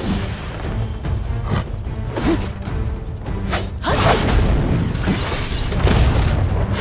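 Animated battle sound effects over background music: whooshing energy strikes, then a louder crashing, shattering blast from about four seconds in.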